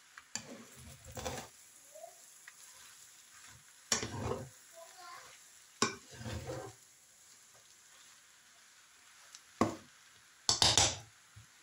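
Noodles stir-frying in a large pan: a spatula scrapes and tosses through them in short bursts every second or two over a faint sizzle, the loudest clatter near the end.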